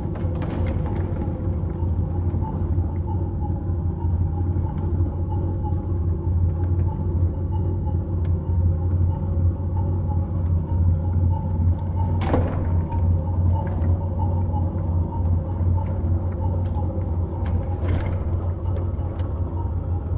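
Heng Long 1/16 KV-1E RC tank's sound unit playing its simulated engine idle, a steady low rumble, with one sharp knock about twelve seconds in.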